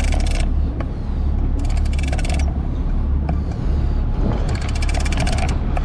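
Boat engine running low and steady under bursts of rapid clicking from a big-game fishing reel, each burst about a second long, coming every couple of seconds as the line is worked against a heavy bluefin tuna.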